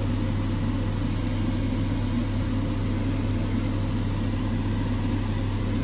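Steady low hum of a running fan or motor, a constant drone with no change in pitch or level.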